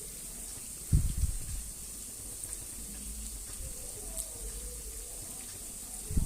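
Falafel frying in hot oil, a steady sizzle, with two dull low thumps about a second in and near the end.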